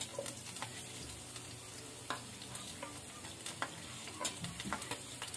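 Garlic cloves sizzling in hot cooking oil in a nonstick frying pan, a steady fry with scattered small pops at irregular moments.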